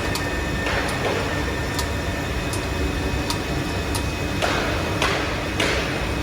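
Steady low machinery rumble with sharp ticks about once a second and two short hissing swells near the end.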